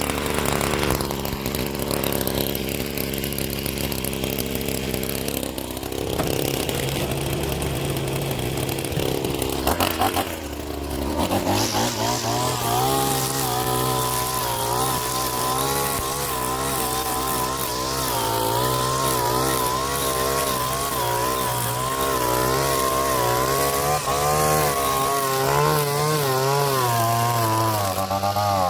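Gas string trimmer's small engine running steadily, its speed wavering up and down with the throttle through the latter part.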